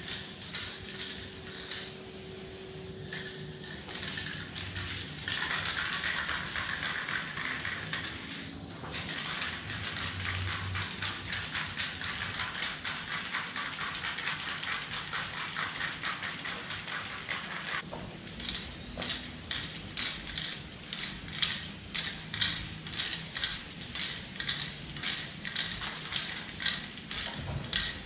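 Aerosol spray paint can spraying silver chrome paint in a long, steady hiss with a short break. Before and after the spray, the can is shaken in a regular rattle of about two strokes a second, its mixing ball knocking inside.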